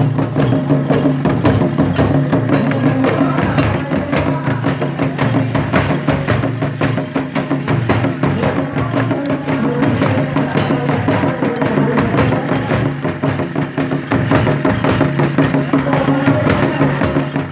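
Several double-headed barrel hand drums beaten in a fast, dense rhythm, with a group of voices singing along.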